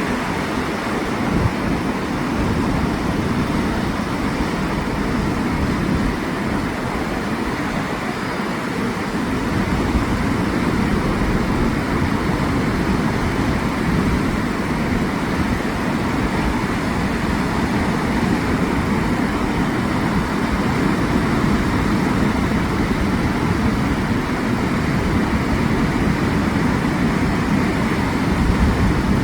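Steady roar of ocean surf breaking on a beach in typhoon swell, with wind rumbling on the microphone.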